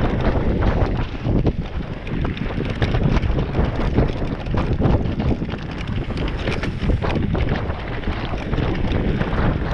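Wind buffeting the microphone of a camera on a mountain bike riding a dirt singletrack, with the rumble of the tyres and frequent clicks and rattles from the bike over the bumpy ground.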